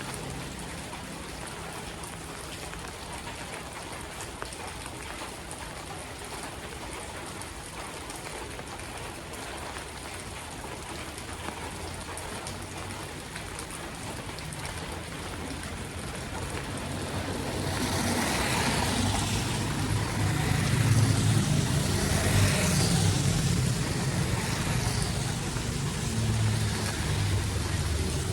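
Steady rush of rain and running floodwater. About two-thirds of the way through, a motor vehicle's engine hum and the splash of water grow louder as it comes close.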